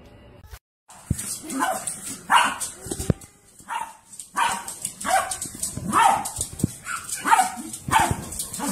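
Small dog barking repeatedly, about one short bark a second.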